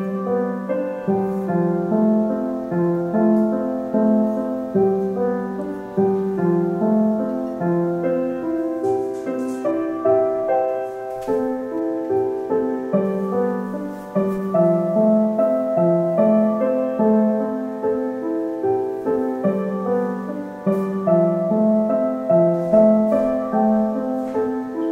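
Background piano music: a steady run of sustained notes.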